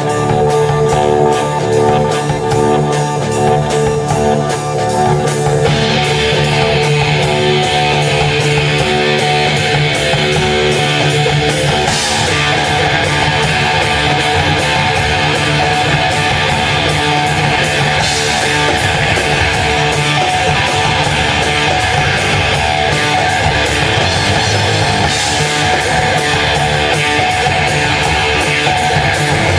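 Live rock band playing with a steady beat; the sound grows fuller and brighter about six seconds in.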